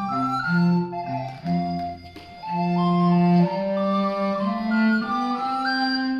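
Instrumental music: a woodwind melody in held notes stepping up and down over a lower sustained line, with a brief lull about two seconds in.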